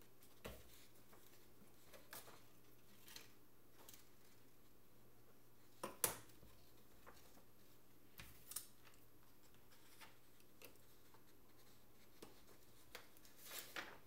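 Plastic clips of a Samsung Galaxy S3 Neo's rear housing clicking as the housing is pressed onto the phone: scattered soft clicks and taps over near silence. The loudest is a double snap about six seconds in, with a few more near the end.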